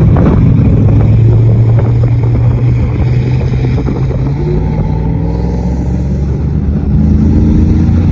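A motor vehicle's engine running with a low hum whose pitch rises gradually, growing louder again near the end.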